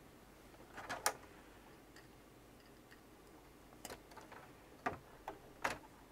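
Light clicks and small knocks as a cable plug is pushed into a Raspberry Pi carrying a Pi1541 adapter board and the board is handled: a pair about a second in, then several more single clicks near the end.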